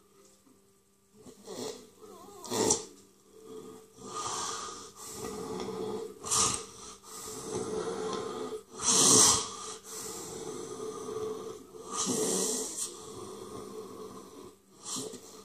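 A person gasping for breath: about ten uneven, noisy breaths, the loudest about nine seconds in.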